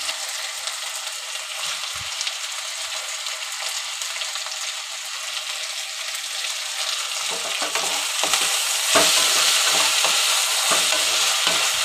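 Potato and brinjal strips sizzling steadily in hot mustard oil in a kadai. From about seven seconds in, a spatula scrapes and turns them in the pan in repeated strokes, and the sizzle grows louder.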